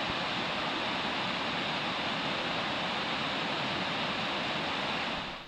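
Small waterfall pouring down a rock chute: a steady rushing of water at an even level, which stops abruptly near the end.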